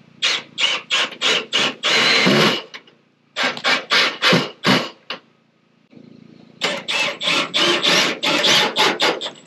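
Hand saw cutting with quick back-and-forth strokes, about three a second, in three runs with short pauses between them.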